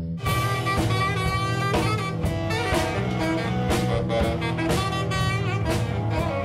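Jazz band music: a saxophone over a drum kit keeping a steady beat of about two strokes a second, the band coming in sharply just after the start.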